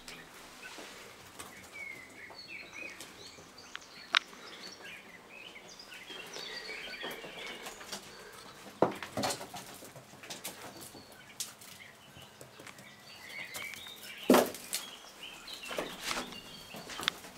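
Quails giving soft, short chirping calls over and over, with a few sharp knocks and rustles, the loudest about nine seconds in and near the end.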